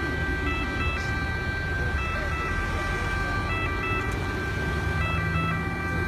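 City road traffic: cars and SUVs pass through an intersection with engine rumble and tyre noise. Over it, a set of steady electronic tones steps from pitch to pitch at irregular moments.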